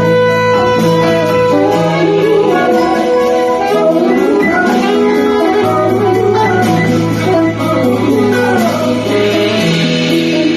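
Live band playing an instrumental stretch of an R&B song, with sustained bass notes under a melodic lead line that sounds like saxophone or guitar.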